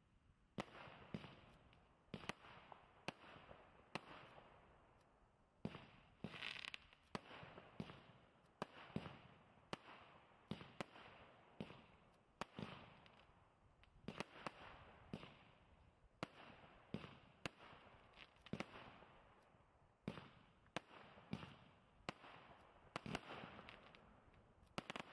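'Signor Pomidor' multi-shot fireworks battery firing shot after shot, roughly one to two sharp bangs a second, each trailing off in a short hiss and crackle. A brief whistling tone sounds about six and a half seconds in.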